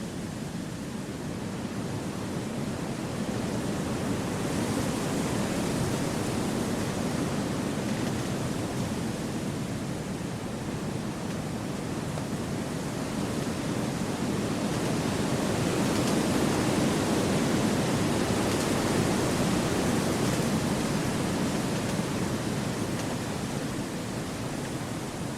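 Wind blowing through forest trees: a steady rushing that swells gently twice, first about five seconds in and again past the middle.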